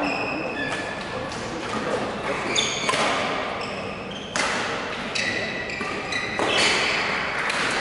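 Badminton hall sounds: a few sharp racket strikes on a shuttlecock and short squeaks of court shoes on the floor, echoing in the large hall.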